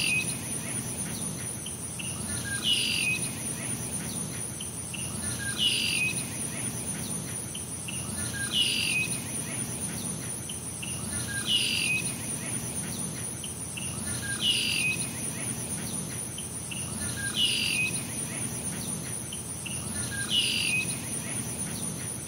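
A short falling bird chirp repeating evenly, about every three seconds, eight times in all, over a steady high-pitched insect-like trill and a low rumble.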